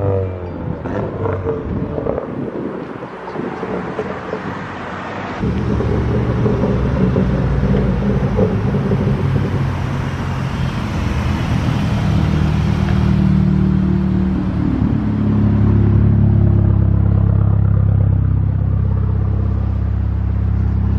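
Engine and modified exhaust of an Audi B9 A4 driving slowly through a parking lot. It gets louder about five seconds in, and from about fifteen seconds a steady low drone runs close by.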